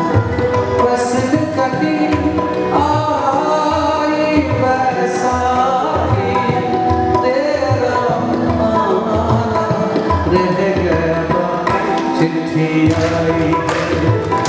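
Live ghazal music: a harmonium's sustained reedy chords with tabla drumming, and a man's voice singing over it through the middle of the passage.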